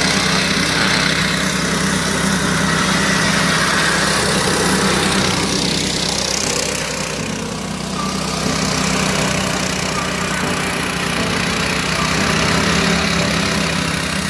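Engine of a Matsumoto MWG-170 D grass and brush shredder running steadily.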